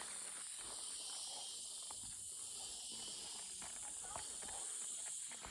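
Steady, high-pitched drone of insects in the forest, with faint footstep ticks underneath.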